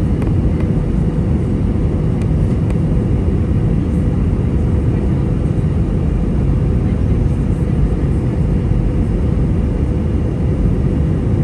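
Steady cabin noise of an Airbus A320 in flight: the rush of air and the drone of the wing-mounted jet engine, mostly low, with a faint steady hum above it.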